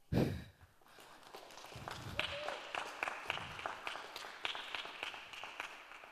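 Audience applause at the end of a talk: many hands clapping, building about a second in and then slowly fading. A short low thump comes right at the start.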